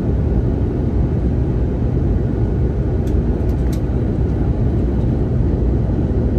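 Steady low rumble of engine and airflow noise inside the cabin of an Airbus A321neo airliner on approach, with a couple of faint ticks about three seconds in.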